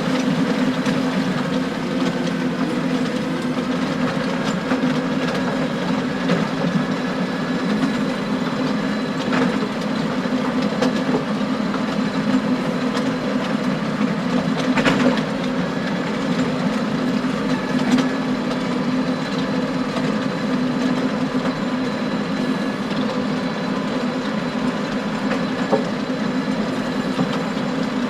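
John Deere tractor engine running steadily under load as it drives a power harrow through wet ground, with a clattering rattle and occasional sharper clacks of stones striking the harrow tines.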